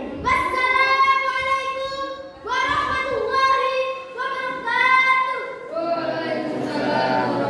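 A girl's high voice singing three long, drawn-out phrases, each held for well over a second. A lower, less distinct voice sound follows near the end.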